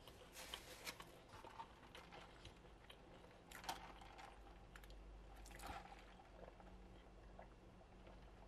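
Faint mouth sounds of a person chewing, then sipping sweet tea through a straw from a paper fountain-drink cup, with a few soft clicks and short slurps.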